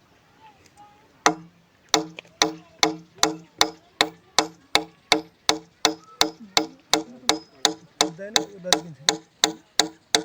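Steady run of sharp strikes of a hand tool on wood, about two or three a second, each with a short ringing tone, starting about a second in.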